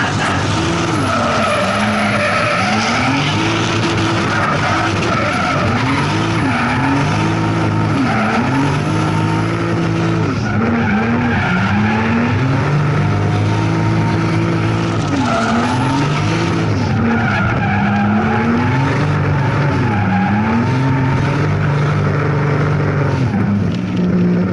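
A drift car's engine revving hard, its pitch rising and falling over and over as the throttle is worked through the run. The tyres make a steady hiss and squeal as they slide.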